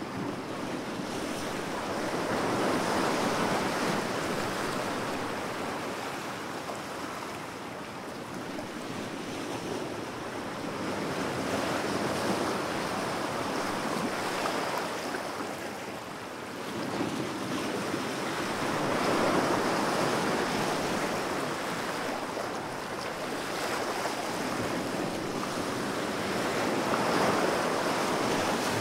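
Ocean waves surging and washing in, the surf swelling and fading in slow cycles about every eight seconds.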